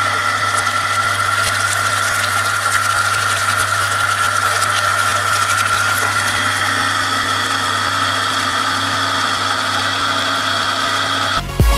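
Electric centrifugal monoblock water pump test-running after its motor was rewound, a steady hum with a high whine, while water gushes from the outlet hose and splashes into a tank.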